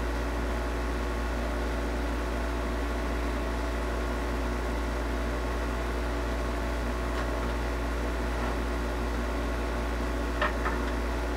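Kendal 852D+ hot-air rework station running with its hot-air gun heating up: a steady hum from its built-in diaphragm air pump. A couple of light knocks about ten seconds in.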